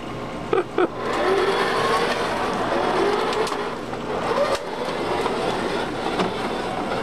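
A toy ride-on car's plastic wheels rolling and rumbling over concrete as it is pushed along, after a couple of short knocks just before a second in.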